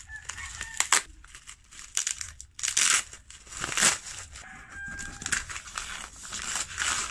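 Bubble wrap crinkling and packing tape tearing as a parcel is unwrapped by hand, followed by the rustle of a paper padded mailer. The noise comes in irregular crackling bursts.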